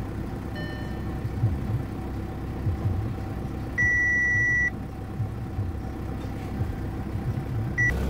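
Audi instrument-cluster warning chime: one steady electronic beep about a second long near the middle, with a brief second beep near the end, sounding as the stabilisation control (ESC) fault warning comes up on a car that will not crank.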